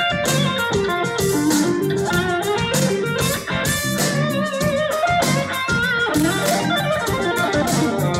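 Jazz-fusion trio playing live: electric guitar running through quick lines of notes over electric bass and a drum kit with cymbals.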